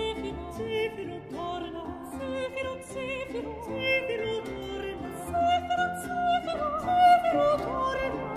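Recorded early Baroque vocal music: singing with vibrato over instrumental accompaniment, with a high held note near the end.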